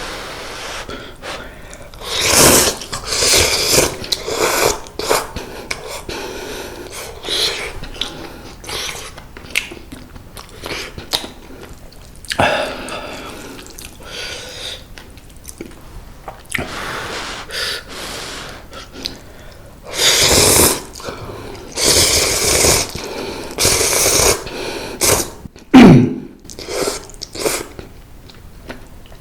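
A person eating mala instant noodles close to the microphone: repeated loud slurps of noodles, half a second to a second each, with chewing between them. Near the end comes the loudest moment, with a short low note falling in pitch.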